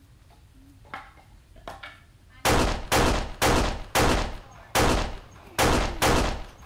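Seven loud gunshots fired in quick succession, each with a short echoing tail.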